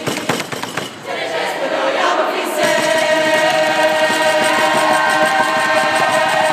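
A group of people singing together without instruments; about two and a half seconds in they settle into a long, steady held note.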